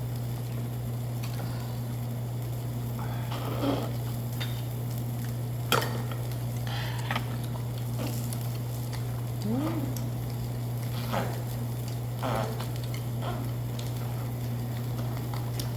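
Meat sizzling on a tabletop barbecue grill over a steady low hum, with a few clicks of utensils and dishes, the sharpest about six seconds in.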